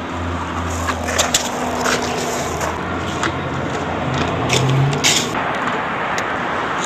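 Aggressive inline skates hitting and grinding along a metal handrail: a rough scraping noise broken by many sharp clacks of skates striking the rail and landing. A low steady hum sits under the first half.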